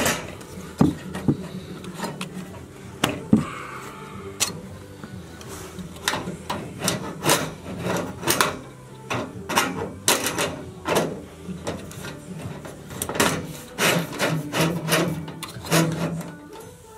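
Handling noise as parts are fitted at a hydronic baseboard heater's copper pipe and cover: irregular clicks, taps and knocks over rubbing and scraping, busiest in the second half.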